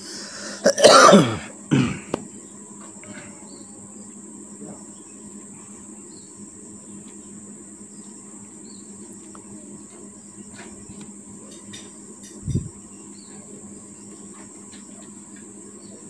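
A person coughing a few times in quick succession. After that, a steady high insect buzz with scattered faint ticks, and a single short low thump near the last quarter.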